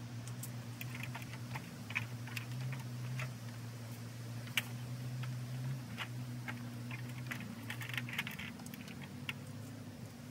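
Scattered light clicks and knocks of wooden pieces being handled and fitted on a swing-set beam and of a stepladder being moved, with a cluster of quick clicks about eight seconds in, over a steady low hum.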